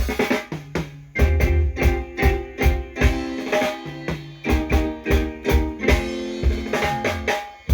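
Live band playing a tune at a sound check: drum kit on a steady beat, with a bass line and held chords on top.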